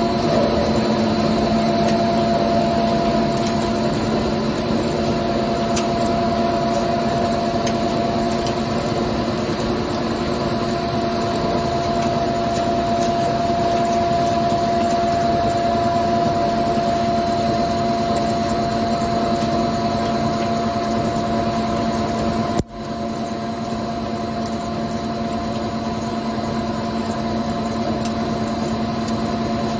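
CNC turning lathe running with its spindle and chuck turning at a steady speed: a steady mechanical hum made of several held tones, with a faint high whine above. The sound drops out for an instant about three-quarters of the way through, then carries on.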